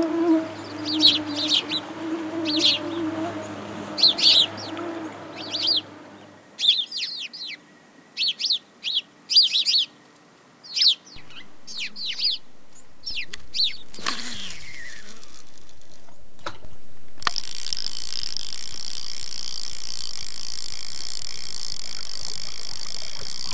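A swarm of mosquitoes whines steadily for the first several seconds, under short, high songbird chirps that carry on to about halfway. Then a falling swish, and from about three-quarters of the way through a steady hiss.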